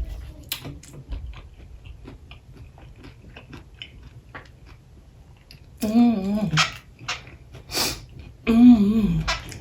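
Close-up chewing of crunchy Hot Cheetos-coated fried boudin balls, with small crackles of the crust. Two short, wavering vocal sounds come about six and eight and a half seconds in.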